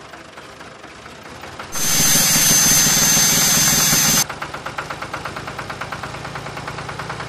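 Heavy machine engine running. About two seconds in, a loud grinding with a high steady whine, a rock saw wheel cutting stone, lasts about two and a half seconds and stops abruptly. The engine then runs on with a rapid, even beat.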